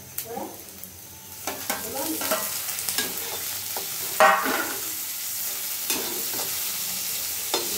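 Chopped tomato and onion frying in hot oil in a metal kadhai, stirred and scraped with a metal spatula. The sizzle grows louder about a second and a half in. A little past the middle the spatula knocks loudly against the pan.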